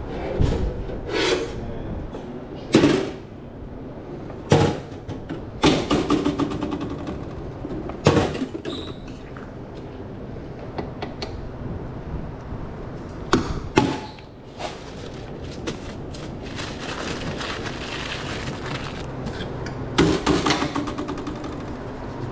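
Irregular clattering and knocking at a hot dog cart as an order is made up: a dozen or so sharp hits, with quick rattling runs about six seconds in and again near the end, over a steady background noise.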